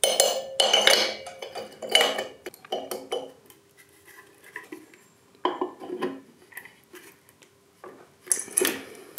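Clinks and rattles of small metal engine parts being handled and pushed together: a Vespa PK50 carburettor and intake manifold fitted onto the engine by hand. They come in three bunches: through the first few seconds, around six seconds in, and again near the end.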